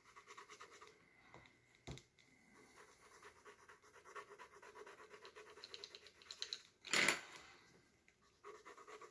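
Colored pencil shading on sketchbook paper: quick back-and-forth scratching strokes, with a soft knock about two seconds in and one brief, louder rasp near the end.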